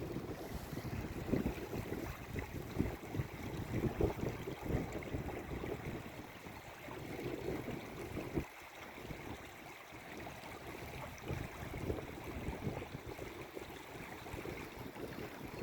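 Mountain brook flowing, a steady rushing hiss, with wind buffeting the microphone in uneven gusts that ease off for a while midway through.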